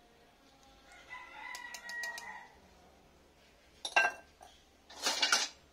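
A rooster crowing in the background, one pitched call of a second or so starting about a second in, followed by two short, loud chicken calls near the end.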